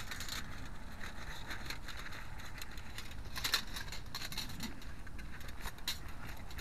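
Fabric bag rustling and gear clicking softly as it is handled and unpacked, over a steady low rumble; a sharper rustle or click comes about three and a half seconds in and another near six seconds.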